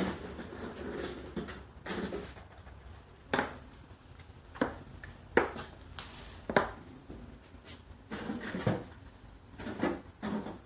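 Black plastic pipe fittings being handled and set down on a hard work table, giving about half a dozen sharp clacks at uneven intervals with faint handling rustle between them.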